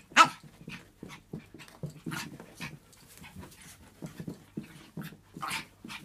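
Small dog panting fast and hard during play, about three to four breaths a second. A much louder sharp sound comes just after the start and another about five and a half seconds in.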